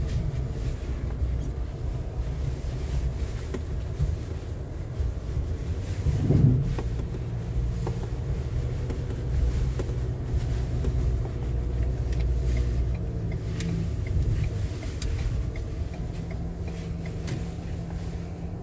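Ford Maverick Tremor pickup heard from inside the cab, crawling over a rutted dirt trail: a steady low engine and road rumble, with one louder thump about six seconds in.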